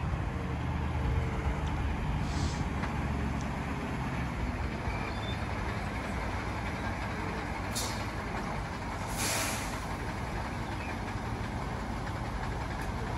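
KAMAZ truck's diesel engine running as the truck pulls slowly up the ramp onto the weighbridge. Three short air-brake hisses cut through it, the longest about 9 seconds in.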